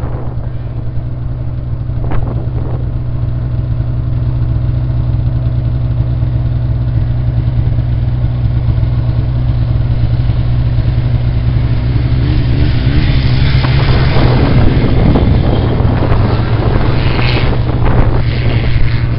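Snowmobile engine running at a steady speed. From about twelve seconds in it grows louder and is joined by more rushing noise.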